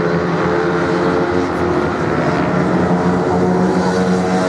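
Several racing motorcycles running hard together on a sand track, their engines blending into one loud, steady drone of overlapping pitches.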